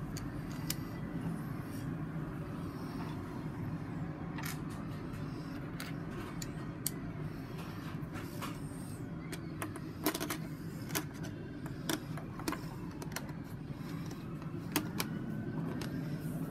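Plastic Lego bricks clicking and snapping together as they are handled and pressed onto the model, in scattered sharp clicks that come thicker near the end, over a steady low background hum.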